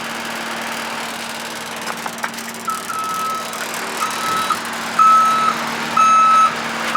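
Reversing alarm of a skid steer or tractor beeping about once a second as the machine backs up, starting a few seconds in, over its engine running steadily. A couple of faint knocks come just before the beeping starts.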